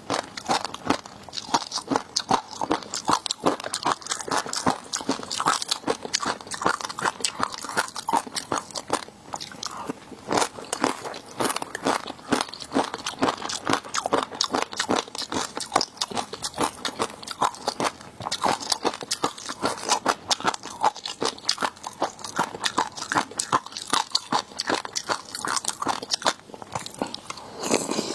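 Close-miked eating of seafood: dense, rapid crunching and chewing, bite after bite with no pause.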